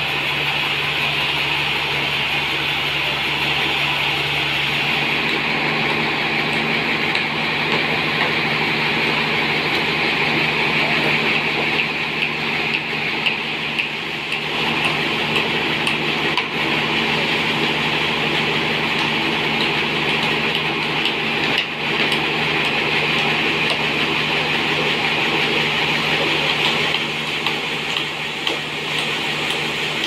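Band sawmill running with a steady motor hum and a high, even whine. A few sharp knocks in the second half come from a hammer striking the trembesi log.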